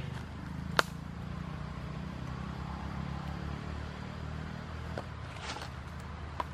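Steady low hum of an engine running, with a sharp click just under a second in and a few faint clicks near the end.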